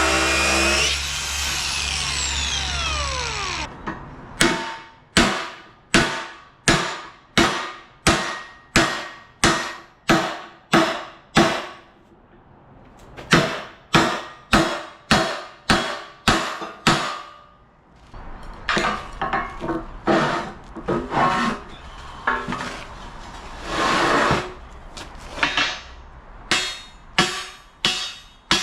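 A power tool runs and spins down in the first few seconds. Then a hammer strikes steel in a steady rhythm, about three blows every two seconds, each blow ringing briefly. The blows come in runs with short breaks and a patch of less regular knocking.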